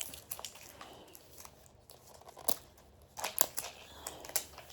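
Plastic packaging crinkling with a few scattered sharp clicks and snaps as a Mini Brands capsule is worked open by hand.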